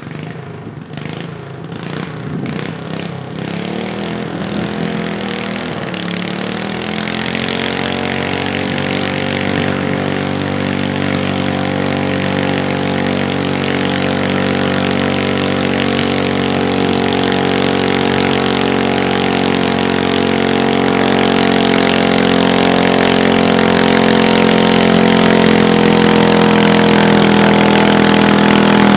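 Pulling garden tractor's engine under load as it drags a weight-transfer sled down the track. The revs climb a few seconds in and then hold steady, and it grows steadily louder as it comes closer, with a few sharp clicks near the start.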